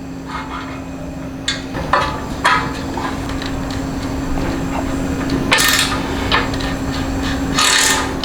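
Metal hand tool clinking and scraping on the motorcycle's exhaust mounting nuts as they are loosened: a few sharp clinks in the first half, then two longer scraping bursts near the end, over a steady low hum.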